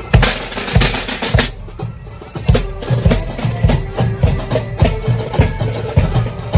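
Parade marching band: a bass drum beats steady march time, about two beats a second, under rattling side drums, with a faint tune over it. The beat lets up briefly about a second and a half in.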